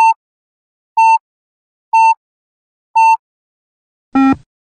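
Yo-Yo Intermittent Endurance Test app's rest countdown: four short high electronic beeps, one a second, then a lower, fuller beep about four seconds in that signals the start of the next shuttle run.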